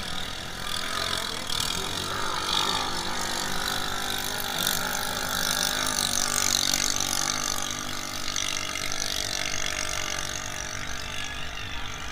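Engines of racing drag boats droning steadily from across the water, over a constant outdoor hiss.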